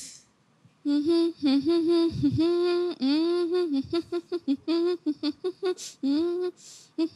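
A woman humming a song's melody into a handheld microphone, starting about a second in. She hums in short notes mostly around one pitch, with a few sliding rises and falls between them.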